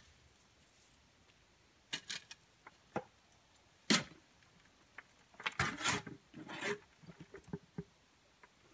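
Shovel working soil in a wheelbarrow: a few separate scrapes and knocks, then a busier run of scraping and clattering about two thirds of the way through, tailing off into small clicks.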